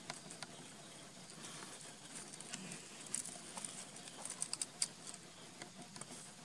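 Small stones and gravel clicking and rattling in irregular ticks as a baby macaque's hands scrabble over them, busiest about three to five seconds in, over a faint steady hiss.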